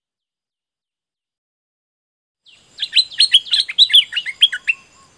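A caged bulbul singing one quick, loud phrase of sharp gliding whistled notes. It starts about halfway through and lasts about two seconds.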